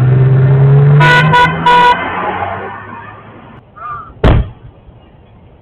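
Vehicle horn giving three short honks about a second in, over a steady low hum that fades away. A single sharp bang comes near the end.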